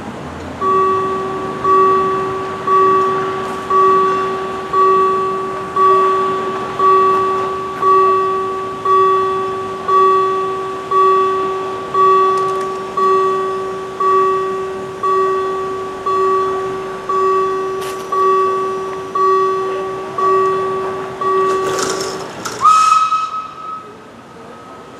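Level-crossing warning bell striking about once a second, each stroke ringing and fading, warning of an approaching train while the barriers come down. About 22 seconds in the bell stops after a brief loud burst, and a high whistle note rises and then holds faintly.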